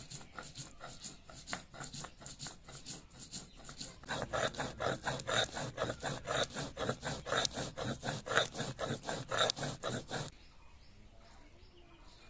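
Stone muller rubbed back and forth on a flat grinding stone (sil-nora), grinding mustard seeds into paste: a steady rasping stroke repeating about three times a second. The strokes grow louder about four seconds in and stop about ten seconds in.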